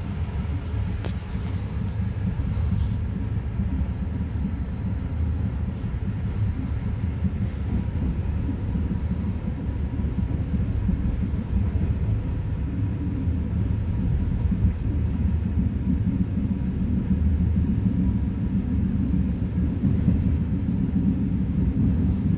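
Passenger train running along the line, heard from inside the carriage: a steady low rumble of the wheels on the rails.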